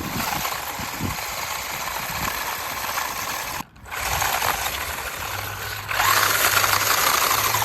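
A 1/14-scale WLtoys 144001 RC car driving, its electric motor and drivetrain whirring with a steady hiss. It stops briefly about three and a half seconds in, then drives on and runs louder near the end.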